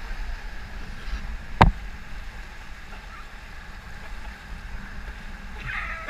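Rushing whitewater and wind rumbling on an action camera riding a raft through river rapids, with one sharp knock about one and a half seconds in.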